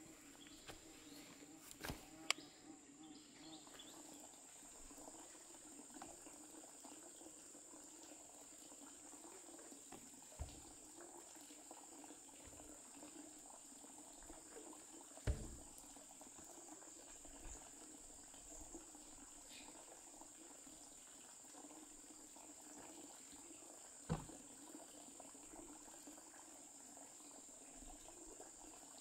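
Faint, steady, high-pitched insect chirring, with four scattered sharp knocks, the loudest about halfway through.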